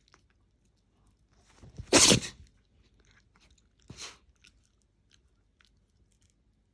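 A mame-shiba (miniature Shiba Inu) sneezing once sharply about two seconds in, then a softer blast of breath through the nose about two seconds later, set off by its whiskers being touched.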